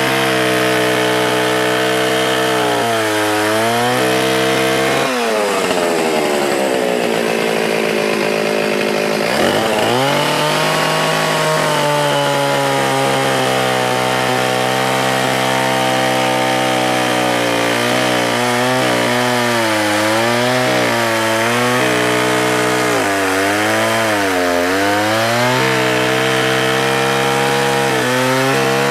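Stihl 044 two-stroke chainsaw running at high revs while cutting a log, its engine pitch dipping repeatedly as the chain bogs down in the wood. About five seconds in the revs fall away, and near the ten-second mark it is throttled back up sharply into the cut.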